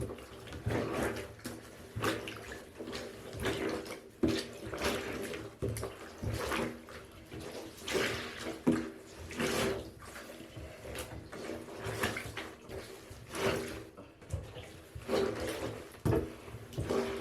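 A soaked fleece cage liner being squeezed and wrung out by hand in a bathtub, water splashing and sloshing in irregular bursts about once a second.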